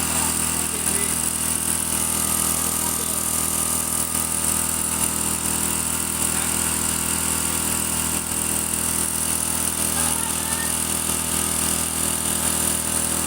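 Two-stroke engine of a power sprayer running steadily at constant speed.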